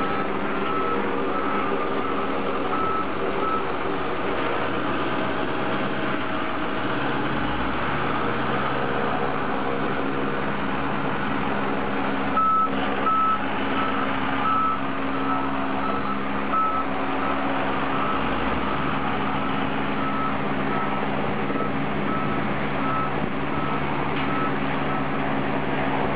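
A truck's reversing alarm beeping in a regular pattern over a heavy engine running steadily. The beeping stops a few seconds in and starts again about halfway through.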